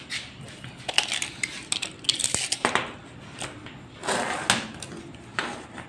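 Hands handling a steel tape measure on a plywood sheet: scattered clicks, scrapes and rustles, with a few longer scraping sounds.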